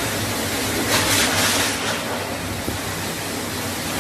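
Steady rushing noise of floodwater. A brighter hiss swells about a second in and fades before two seconds.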